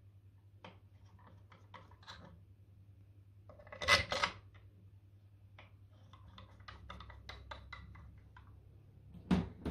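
Stainless steel bolts and a metal tool clicking and clinking against a plastic water-softener valve head as the bolts are dropped into their holes and turned to find their thread. There is a louder double clatter about four seconds in, a run of light ticks a couple of seconds later, and a sharper knock near the end.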